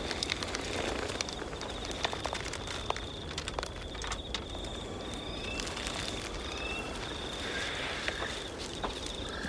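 Night forest ambience: a steady, high, pulsing chirp of insects over a low rumble, with scattered small clicks and rustles.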